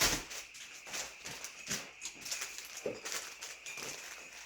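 Light irregular taps, clicks and rustles of packaged food items being handled and set down on a table.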